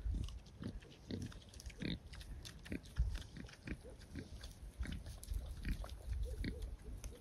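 Wild boar, a sow and her young, feeding close by: soft, irregular short grunts and rooting noises, with a few low thumps.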